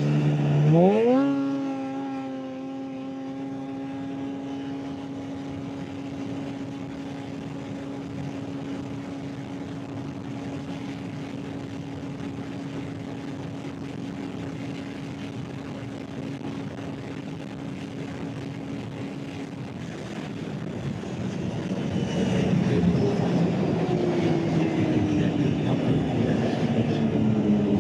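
Arctic Cat ZR 858 Catalyst snowmobile's two-stroke twin accelerating hard from a standstill. The engine note climbs fast in the first second or two, then holds one steady high pitch at full throttle. Later the note ends, wind rush on the microphone grows louder, and the engine's pitch falls steadily as the sled slows from about 102 mph.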